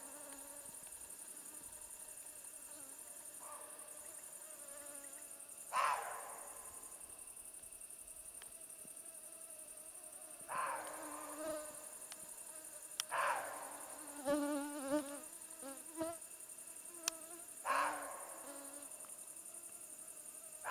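Mosquitoes whining close to the microphone, the pitch wavering as they fly about. A short loud sound with a sudden start and a fading tail cuts in about every few seconds, five times.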